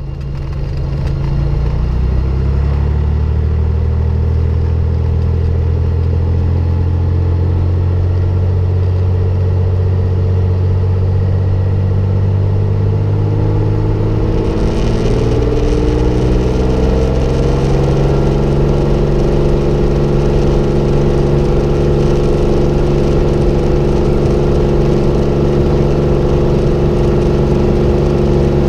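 Cessna 210L's six-cylinder Continental engine and propeller running steadily. About 14 seconds in, the note rises over a few seconds as power comes up for the takeoff run, then holds steady at the higher pitch.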